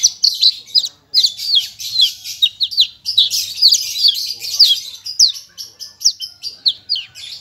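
Javan bush lark (branjangan) singing a fast, unbroken run of sharp, downward-slurred whistles. The song is packed with borrowed phrases mimicked from other birds. There is a brief pause about a second in.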